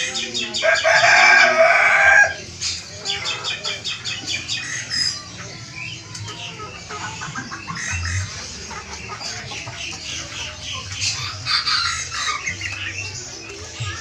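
A rooster crows once, loud and drawn out for nearly two seconds, starting about half a second in. Many caged small birds chirp and twitter rapidly and continuously in the background.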